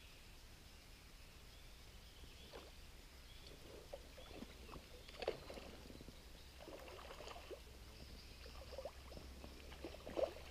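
Faint, scattered splashes and lapping of water, loudest about five seconds in and again just before the end.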